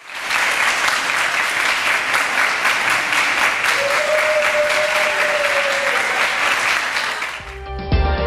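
A large group of schoolchildren applauding, many hands clapping together. A single held tone rises over the clapping for about two seconds midway. Near the end the clapping fades and music starts.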